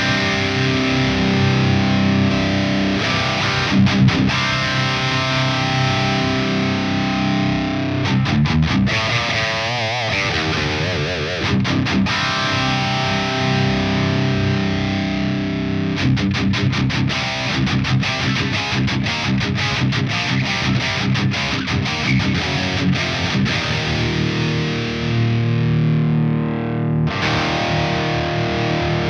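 High-gain distorted electric guitar through a digital amp simulation modelled on the EVH 5150 III, playing held chords and notes broken by runs of fast, tightly picked passages. Its brightness shifts noticeably about 27 seconds in.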